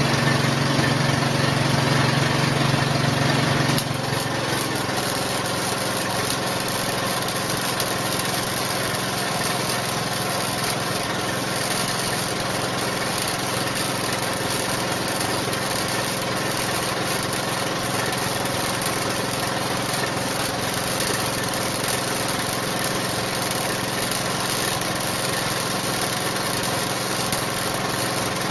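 An angle grinder running on steel for about the first four seconds, then stopping. Then MIG welding: the arc crackles and hisses steadily over a continuous machine drone.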